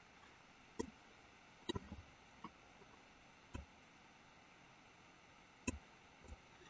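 Near silence with a few soft, scattered computer mouse clicks, six or seven spread over the few seconds.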